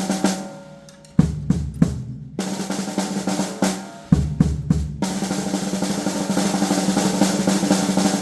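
Drum kit solo: snare drum rolls broken up by single sharp hits with bass drum thumps, building into a long unbroken snare roll from about five seconds in.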